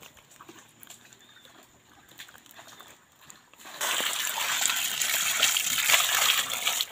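Muddy water poured from a bucket onto a net full of fish, splashing loudly for about three seconds, starting about four seconds in after a quiet stretch of faint small ticks.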